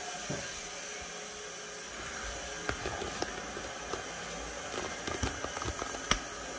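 A steady hiss, with scattered small clicks and knocks from about two seconds in.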